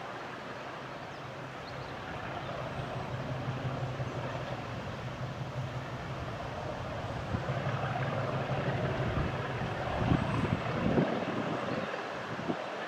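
Heritage diesel locomotive engine running steadily, its low hum slowly growing louder.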